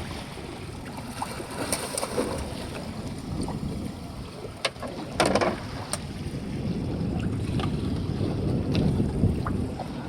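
Wind buffeting the microphone over water sloshing aboard a small fishing boat at sea, with scattered small knocks and one louder splash-like burst about five seconds in.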